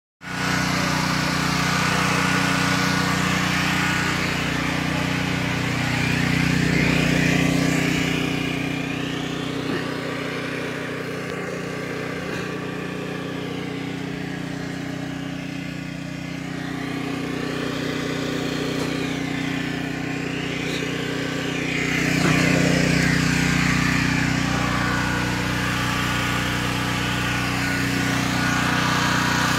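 Portable generator engine running steadily at a constant pitch while powering sump pumps that drain a flooded basement. The hum fades for roughly the middle half and grows louder again for the last third.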